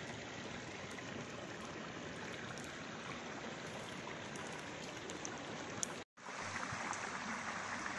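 Steady rushing noise, broken by a split-second dropout about six seconds in, after which it is brighter and hissier.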